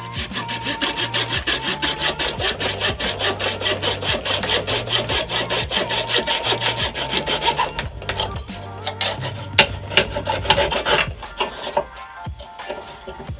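Coping saw cutting through wood by hand: quick, even back-and-forth rasping strokes for about eight seconds, then slower, uneven strokes that stop shortly before the end.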